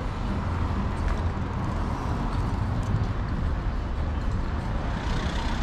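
Town street ambience: a steady low rumble of road traffic, with no clear single event standing out.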